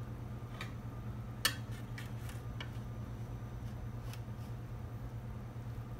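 A few light clicks and scrapes of a metal pizza server against a pizza pan, with a sharper knock about one and a half seconds in, over a steady low hum.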